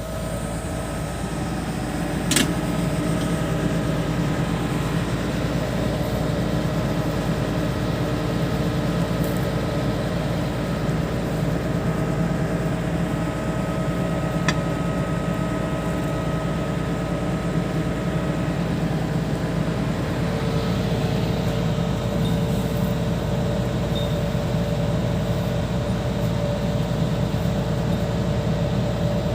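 Hitachi 210 excavator's diesel engine running steadily at a constant speed, with a sharp metallic click about two seconds in and a fainter one near the middle.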